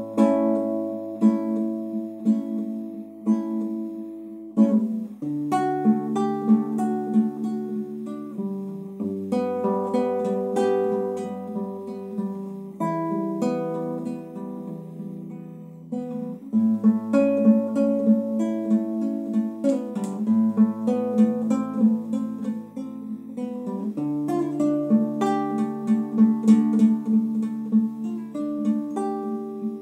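Solo acoustic guitar playing an instrumental interlude in a Latin American trova-style folk song: plucked and strummed chords over bass notes that change every few seconds, with no singing.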